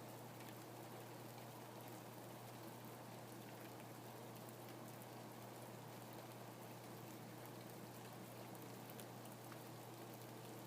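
Rain falling steadily, a soft even hiss with scattered single drops ticking, over a steady low hum.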